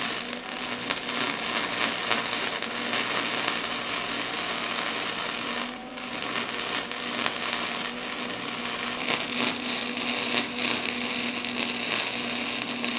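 Wire-feed welder's arc crackling steadily as a gear hub is welded into a steel chain sprocket, with a short break about six seconds in before the arc is struck again.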